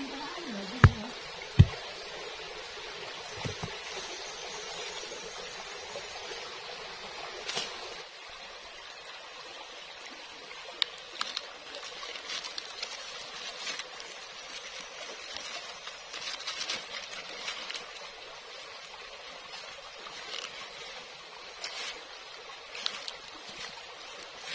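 Shallow stream trickling steadily over rocks, with two sharp knocks of stone set down on stone about a second in. Later, scattered light crackles and rustles of dry bamboo leaves and sticks being handled.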